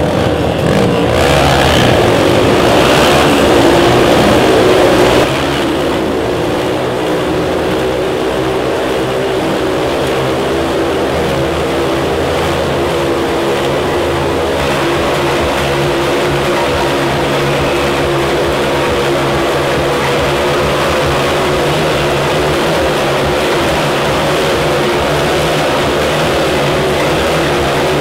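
Several motorcycles riding round inside a steel-mesh Globe of Death, their engines revving over the first few seconds and then running at a steady pitch.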